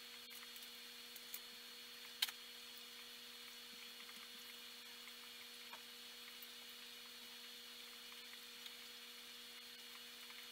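Faint steady hum of running aquarium equipment under a light hiss of bubbling water, with a few tiny ticks and one sharp click a little over two seconds in.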